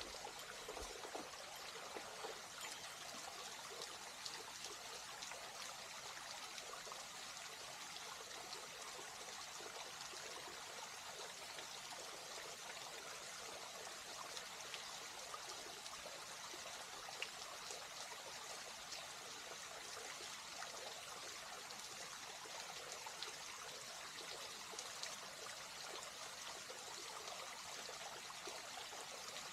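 Faint, steady rush of water at a waterfall and its stream, with small splashes flicking through it.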